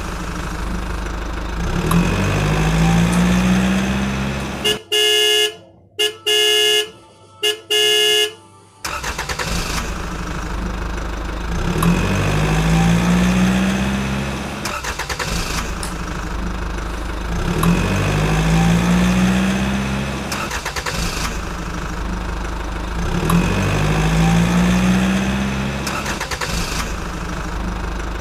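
Electronic sound effects from a remote-control toy car: a looping recorded engine sound that revs up every six seconds or so. About five seconds in it is cut off by several loud horn beeps in quick succession.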